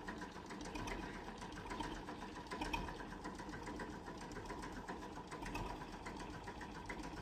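An engine running steadily with a fast, even ticking.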